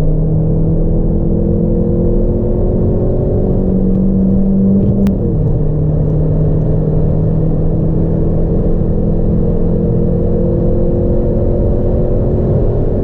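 Opel Calibra petrol engine accelerating hard. Its note climbs slowly, drops sharply about five seconds in at a gear change, then climbs again in the next gear.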